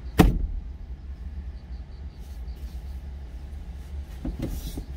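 A single sharp slap a moment in, a hand swatting at a mosquito inside a truck cab, over a steady low rumble from the idling truck engine. A few brief rustles near the end.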